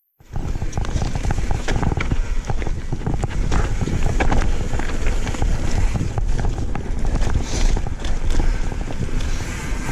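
Mountain bike descending a rough dirt trail at speed: a steady rumble of tyres and wind on the camera's microphone, with constant rattling clicks and clacks from the bike over roots and stones. It begins abruptly just after the start.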